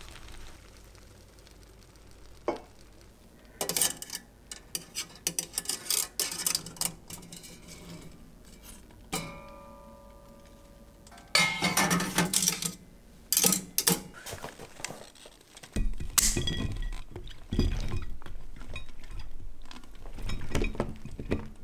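Stainless steel steamer basket clinking and clanking against an enamel stockpot as its wire handles are raised and it is lifted out, with one ringing clank about nine seconds in. Near the end, cooked pea pods tumble out of the basket into a ceramic dish in a soft, dense rattle.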